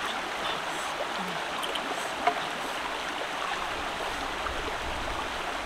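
Shallow stream running over rocks: a steady, even wash of water, with one small sharp knock about two seconds in.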